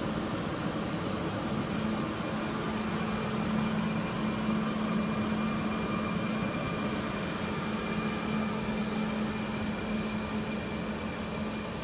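Regional double-deck electric train pulling away, its electric traction equipment giving a steady low hum and a thin high whine over the running noise.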